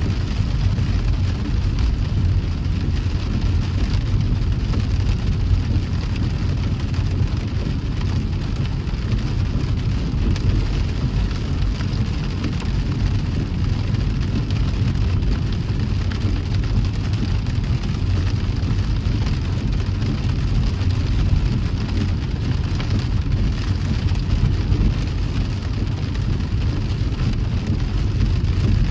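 A car driving in the rain: a steady low rumble of the car on the road, with an even hiss of rain and wet road over it.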